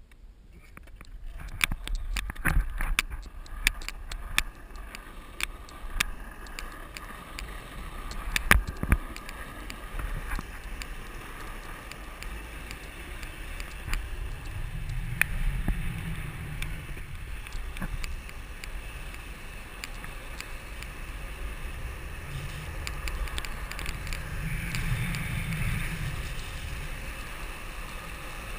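Longboard wheels rolling fast down an asphalt road, with wind rushing over the action camera's microphone. Sharp clicks and knocks come in the first several seconds, then the rolling and wind noise runs steadier, with a couple of low swells of wind buffeting.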